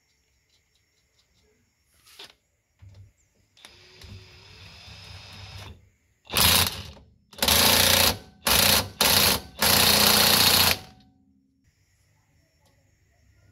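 Cordless impact wrench (DeWalt XR) running a rear axle hub nut down with a steady whir, then hammering it tight in five loud bursts.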